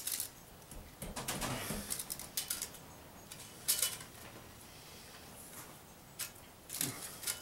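Scattered light clicks, taps and rustling from hand work measuring and fitting an exhaust pipe along a motorcycle frame, with a short low sound near the end.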